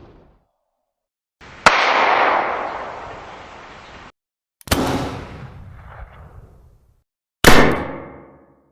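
Three separate gunshot sound effects, each a sharp bang trailing off into an echoing tail, with dead silence between them. The first tail cuts off abruptly, and the last bang carries a ringing tail.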